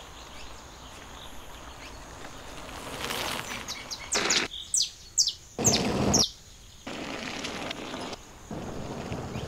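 Woodland ambience with birds chirping, broken near the middle by several short, loud rushes of noise that start and stop abruptly.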